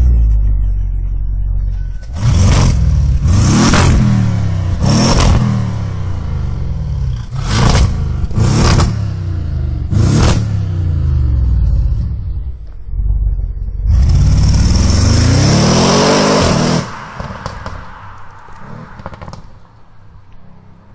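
Audi RS6's 4.0 TFSI twin-turbo V8 exhaust idling and revved in about six sharp throttle blips, each pitch rising then falling back to idle. Then a longer rev climbs and falls near the end, and the engine sound fades away after it.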